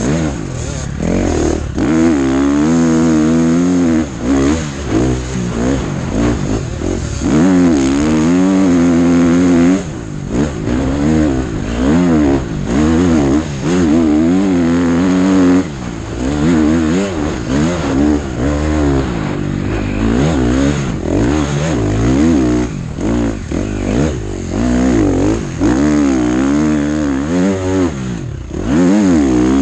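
KTM motocross bike's engine heard from on board, revving hard with its pitch rising and falling over and over as the rider accelerates, shifts and eases off, with a few short throttle-off dips.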